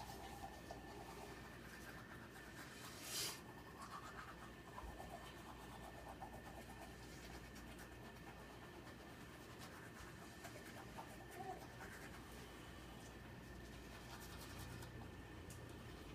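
Faint scratchy scrubbing of a toothbrush on teeth, with one short, louder rush of breathy noise about three seconds in.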